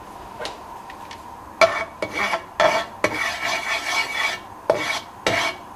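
A spatula scraping across the inside of a wok, spreading the warming oil around the pan: a run of short scraping strokes starting about a second and a half in, one of them longer, over a second.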